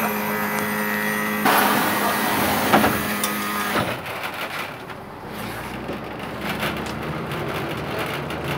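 Inside an Ikarus 280 bus: a loud hiss of compressed air and a thud as the pneumatic doors close, then the diesel engine running as the bus pulls away, its pitch rising near the end.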